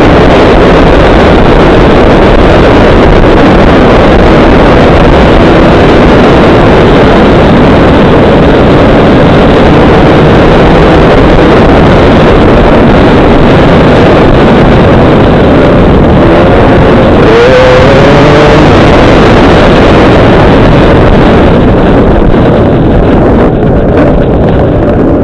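Dirt bike engine running hard at speed, mixed with wind rushing over the microphone, loud throughout. The engine pitch swings up and down about two-thirds of the way through.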